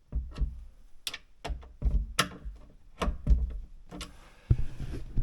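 Screwdriver snugging down cabinet hinge screws: a run of sharp, irregular clicks and light knocks, several a second, with a low thump near the end.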